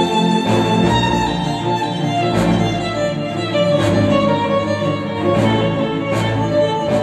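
Instrumental music with violins and a string section over occasional percussion hits, played back through KEF R3 bookshelf speakers.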